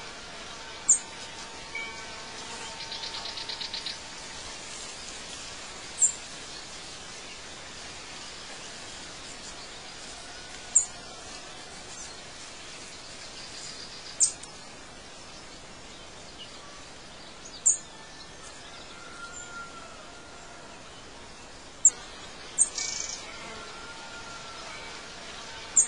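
Birds chirping over a steady hiss. Short, sharp, high chirps come every few seconds and are the loudest sounds, with fainter, lower calls between them.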